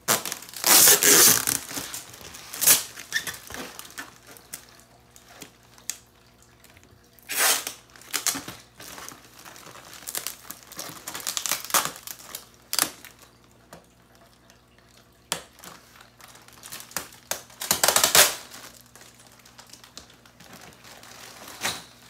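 Clear plastic air-column cushion packaging crinkling and rustling as it is handled and pulled open, in irregular bursts. The loudest bursts come about a second in and again near eighteen seconds, with quieter rustling in between.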